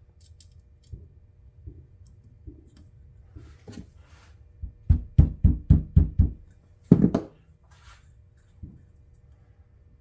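Small non-metal hammer tapping an Allen wrench into a tight screw head: a few light knocks, then a quick run of about six taps about five seconds in and one heavier knock just after.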